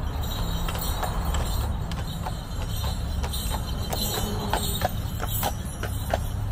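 Carriage horse's hooves clip-clopping: sharp, irregular knocks starting about two seconds in, several a second, over a steady low rumble.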